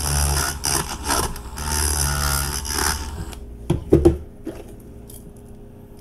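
Dremel rotary tool running with its bit grinding against the edges of a drilled hole in a diecast metal car body, a steady motor whine with a gritty hiss. It stops about three seconds in, followed by a few sharp clicks and knocks as the parts are handled.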